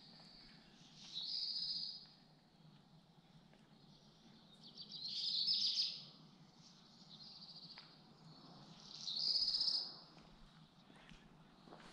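A songbird singing a short, high, rapid trilling song three times, a few seconds apart.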